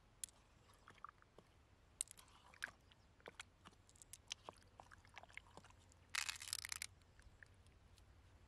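Freshwater pearls clicking against one another as they are rolled and handled in the palm: scattered small, sharp clicks, with a quick clatter of many clicks about six seconds in.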